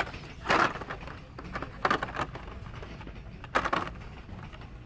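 Hot Wheels blister-card packages rustling and knocking together as they are flipped through on a peg hook, in three short bursts a second or two apart.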